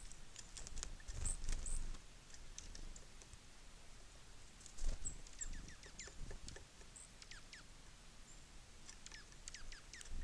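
Small songbirds at a feeder giving short, high chirps and quick falling call notes, in two runs late on. Light tapping and a couple of soft low thumps mix in with the calls.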